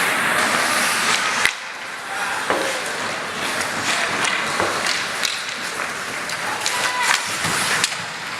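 Ice hockey play: skates scraping the ice and sticks and puck clacking, with a sharp bang about a second and a half in, echoing in the rink.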